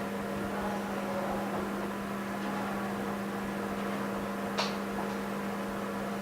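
Steady electrical machine hum with a constant low tone, and a single sharp click about two-thirds of the way through.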